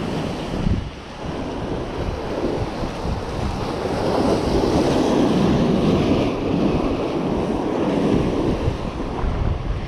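Ocean surf washing in, swelling louder about halfway through, with wind buffeting the microphone.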